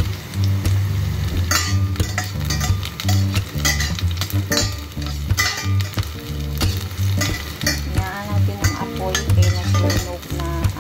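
Sliced garlic and onion sizzling in hot oil in a stainless steel pan, with a metal spatula repeatedly scraping and clinking against the pan as they are stirred. Background music with a steady bass line plays underneath.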